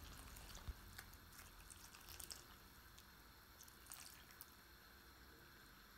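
Near silence with a few faint, scattered drips and soft clicks: a thin stream of cornflour slurry pouring into a pot of soup while a ladle stirs it.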